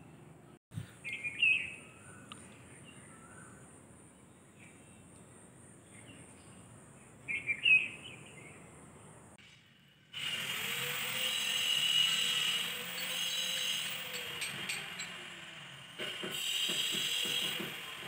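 Two short bird chirps over faint outdoor background, then from about ten seconds in a hand-held electric power tool runs loudly and steadily, stopping briefly and starting again near the end.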